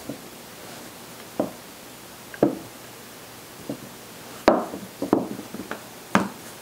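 Wooden rolling pin working a slab of tortilla dough on a silicone mat, giving short, irregular knocks as the pin is pressed down and bumps the counter. There are roughly one a second, bunching closer together after the middle.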